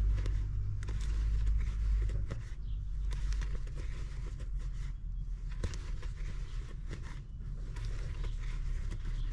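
Crochet hook working cotton yarn: soft rustling and light scattered clicks over a steady low rumble.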